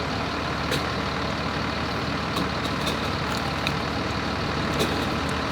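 Heavy vehicle engine idling: a steady low rumble, with a few faint ticks over it.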